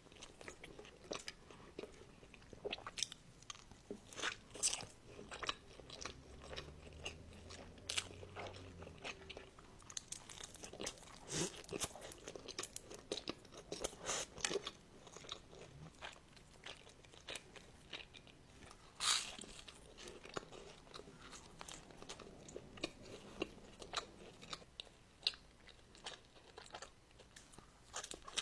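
Close-miked eating: biting and chewing crunchy food, a dense run of irregular crisp crunches.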